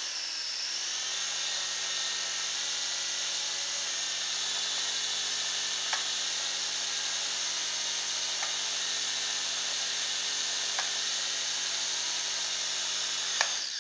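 A Silverlit Sky-Knight toy helicopter's small electric motors and rotors whir steadily while it is held in the hand, with a few faint clicks. The note shifts slightly a couple of times as the tail rotor spins up, yet the constant spin to the left stays uncorrected. The whir cuts off suddenly near the end.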